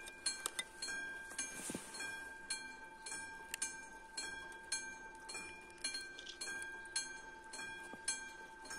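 Classic Czech level-crossing warning bell ringing steadily, about two strikes a second, each stroke leaving a lingering metallic ring. It is the crossing's warning that a train is approaching.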